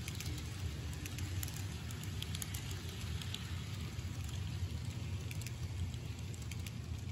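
N scale model freight cars rolling slowly along the track: a steady low rumble with scattered faint clicks.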